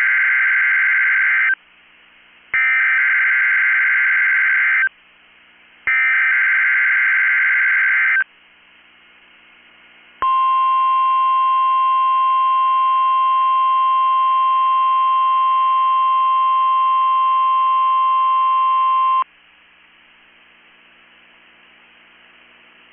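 NOAA Weather Radio emergency alert signalling for a Required Weekly Test. Three harsh, buzzy SAME digital header bursts about a second apart, the first already under way, are followed after a short gap by the steady 1050 Hz warning alarm tone, held for about nine seconds. It then stops, leaving faint radio hiss.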